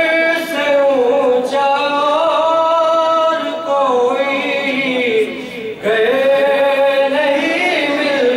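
A young man singing a manqabat into a microphone without instruments, drawing out long melodic notes that waver in pitch, with a short break about five and a half seconds in.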